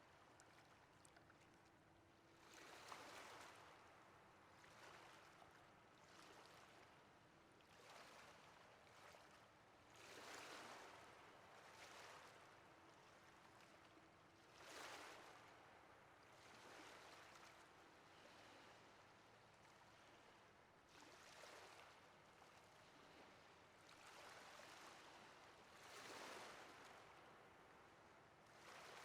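Small ocean waves washing in, each a quiet rush of surf that swells and fades, coming every two seconds or so over a steady background wash of water.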